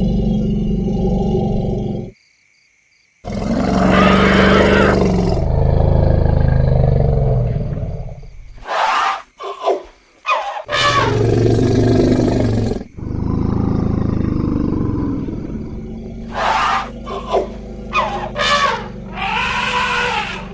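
Elephants calling: a loud trumpet about three seconds in, then a run of shorter trumpets and squeals with deep low rumbles between them, and a cluster of short trumpeting calls near the end. The sound cuts out briefly about two seconds in.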